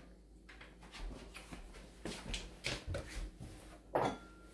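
Faint scattered knocks and clatter of things being handled in a kitchen, with one louder knock about four seconds in.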